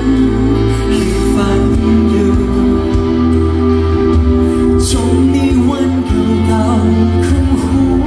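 Live band playing a Thai pop ballad, with singing over sustained bass and chords and an occasional cymbal stroke.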